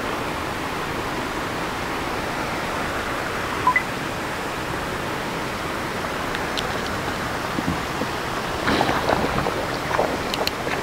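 Steady outdoor background noise at a fishing pond, an even rushing hiss, with a brief high chirp about four seconds in and a few faint clicks near the end.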